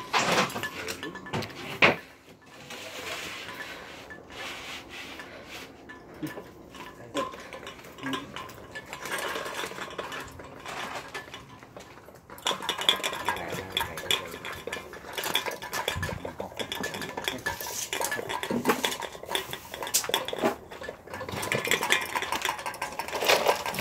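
Metal things being handled, clinking and scraping in many short knocks that grow busier and louder about halfway through.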